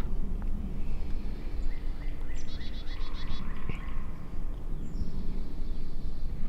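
Wild songbirds singing in spring woods: a run of short falling notes and a fast high trill a couple of seconds in, then a higher held phrase later on, over a steady low rumble.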